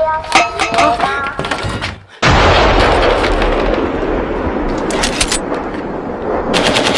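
An explosion sound effect: a sudden loud blast about two seconds in, then a long noisy rumble that slowly fades, with a few sharp clicks near the end.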